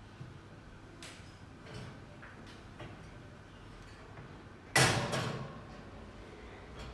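Glass baking dish slid across an oven's wire rack: a few light clicks, then a little under five seconds in a single loud scrape and clatter of glass on metal that dies away over about a second.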